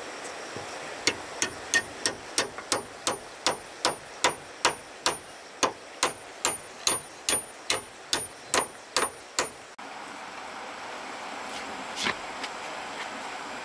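A hand tool striking repeatedly in a fast, even rhythm, about two to three blows a second. It stops abruptly just under ten seconds in, and a single strike follows a couple of seconds later, over a steady background hiss.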